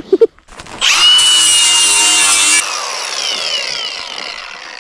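A high-speed disc power tool runs loudly with a steady whine for about two seconds, then is switched off and winds down with a falling whine.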